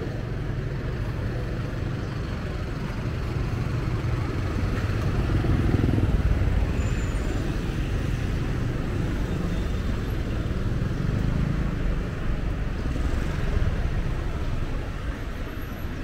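Street traffic: a steady rumble of engines and tyres, swelling as a vehicle passes close about six seconds in and again a few seconds later.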